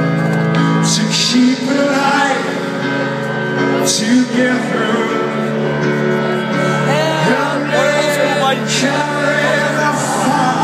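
Live band playing a slow song over a large outdoor PA, heard from within the crowd: long sustained chords with a man singing over them.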